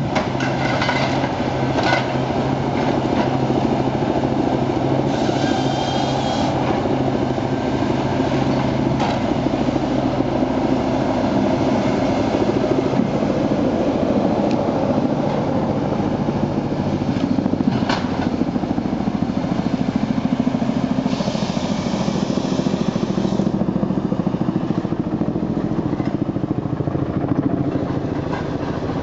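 Excavator-mounted log processor working: its diesel engine and hydraulics run steadily under load, with a few sharp knocks as the processing head handles logs.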